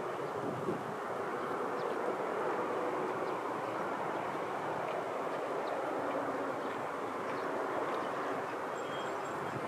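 Steady rushing outdoor background noise that neither builds nor fades, with a few faint, short, high chirps scattered through it.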